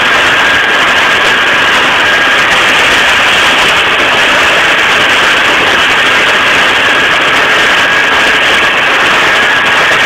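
Tractor and New Holland 278 small square baler running together while baling, a loud, steady mechanical din with a thin steady high whine through it.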